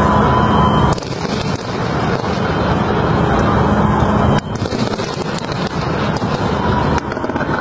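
Fireworks display: a dense, steady crackling rumble from the pyrotechnics. It drops off abruptly about a second in and again near the middle, where the footage cuts.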